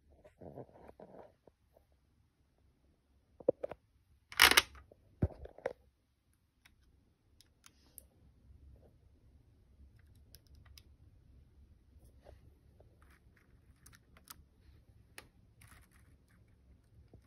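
Handling noise close to the microphone: a short rustle and a few sharp knocks in the first six seconds, the loudest about four and a half seconds in. After that only a faint low hum with scattered light clicks.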